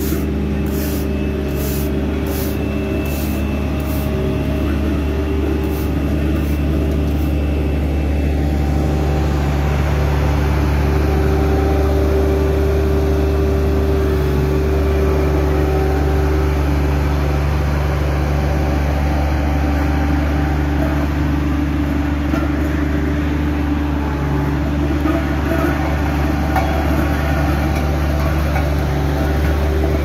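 Diesel engines of asphalt road-surfacing machines, a paver and a small twin-drum roller, running steadily at a constant pitch. A few sharp clicks or scrapes come in the first few seconds, and a rougher, grittier noise joins about nine seconds in.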